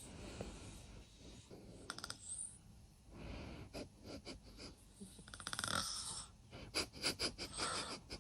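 A man snoring in his sleep: rough, breathy snores in and out, with a few short sharp clicks in between.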